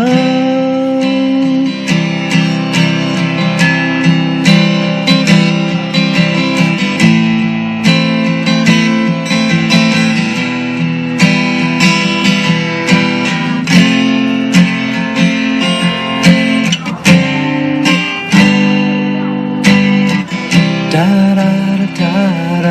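Instrumental break of a pop song demo: acoustic guitar strumming steadily over bass, with no singing.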